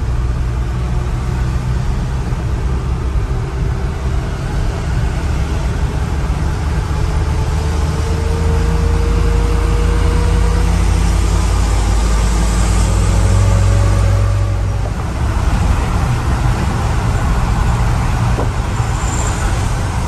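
Loaded cargo truck's engine running under way with road noise, a steady low drone whose pitch slowly rises and falls, with a brief drop about fifteen seconds in.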